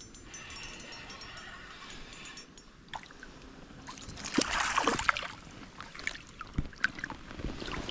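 A hooked brown trout splashing and thrashing at the surface of a shallow river as it is brought in, loudest about four to five seconds in, followed by smaller splashes and drips. Before that, the faint whir of a spinning reel being wound.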